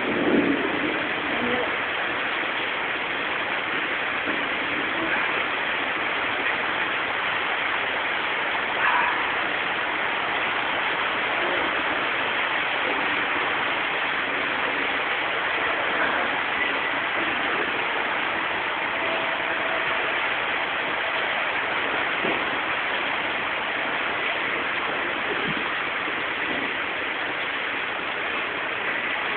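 Rain falling steadily in a storm, an even hiss with no let-up.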